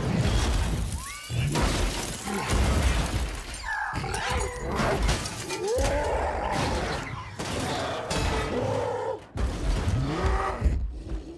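Action-film fight effects: repeated crashes and shattering, with debris clattering as a car and rubble are smashed. Several short, guttural creature roars and grunts cut through the crashes.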